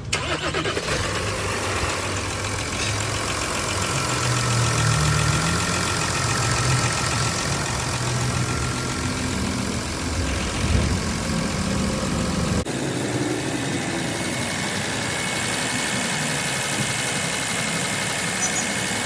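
Audi Q7 engine running at idle after timing chain repair work. The sound is steady, then changes suddenly about two-thirds through, losing most of its deep rumble.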